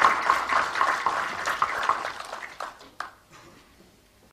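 Applause from a roomful of people, the clapping thinning out and dying away about three seconds in, with a last lone clap.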